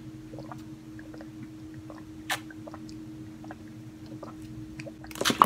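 A person gulping and swallowing while drinking from a plastic bottle: small wet clicks of the mouth and throat, with a sharper click about two seconds in and a few louder clicks near the end.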